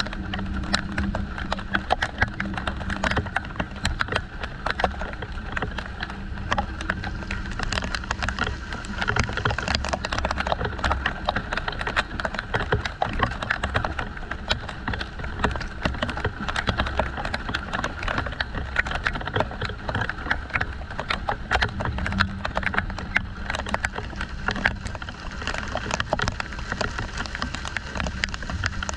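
Steady rain in a thunderstorm: many close drops tick and patter irregularly against nearby surfaces, over a steady low rumble.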